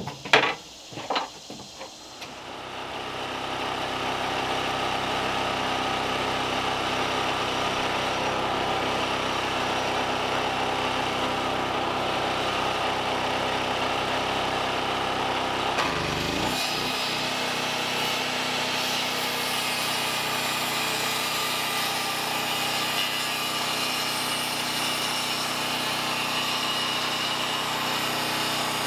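A few sharp knocks of timber and tools, then a handheld power tool running steadily as it is worked on a timber board, its sound changing and growing more high-pitched about halfway through.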